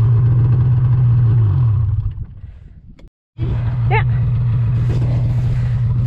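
Snowmobile engine running steadily while towing a snow tube, then dropping in pitch as it slows and fading away. After a short break the engine is heard again, running steadily at low revs, with a brief high-pitched call about four seconds in.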